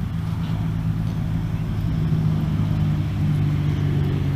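An engine running steadily, a low hum that drops slightly in pitch about three seconds in.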